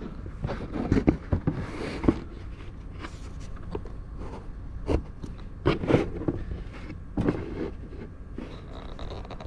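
Scattered knocks and scrapes of handling, loudest about a second in, again around five to six seconds and near seven seconds, over a low steady room hum.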